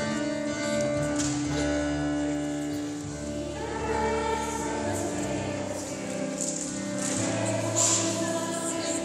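Choir singing long held notes.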